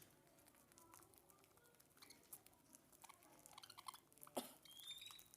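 Lovebirds pecking and nibbling, heard as faint scattered clicks, with one sharper click and a short high chirp near the end.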